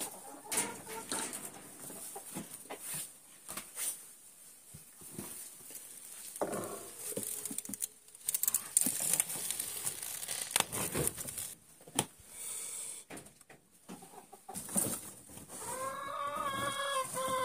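Chickens clucking, with knocks and rustling as boards and nest-box material are handled while eggs are collected. Near the end one chicken gives a long drawn-out call.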